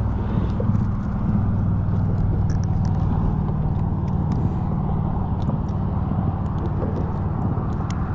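Steady low engine drone throughout, with scattered faint ticks over it.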